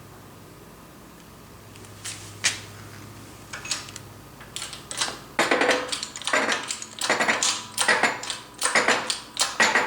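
Metal gearbox parts and press tooling clicking and clattering as they are handled: a few separate sharp clicks, then from about halfway a dense run of rapid metallic clicks and rattles.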